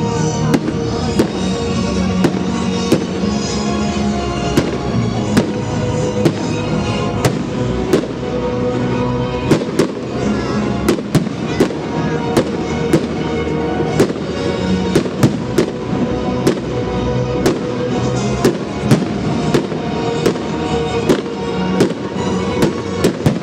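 Fireworks going off in an irregular series of sharp bangs, about one or two a second, over music with long held notes.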